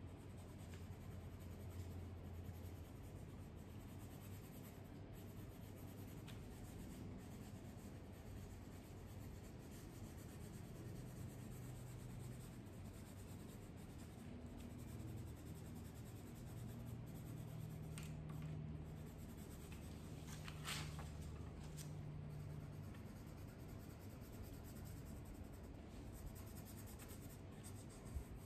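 Coloured pencil scratching and rubbing on paper, faint and continuous, with a couple of light taps near the middle and a low hum underneath.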